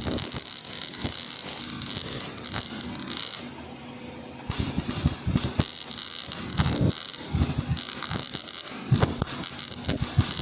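Welding arc crackling and sputtering as a bead is run. It stops for about a second, a little over a third of the way in, then strikes up again and keeps crackling.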